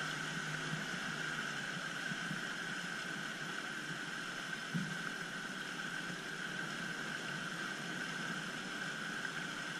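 Outboard motor running at a steady speed as the boat moves under way, with water rushing in the wake; the engine note holds constant throughout.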